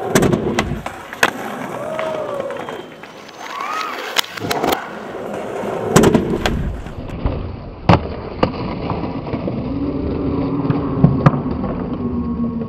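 Skateboard wheels rolling on concrete, broken by sharp clacks of the board popping and slapping down on landings, several times over.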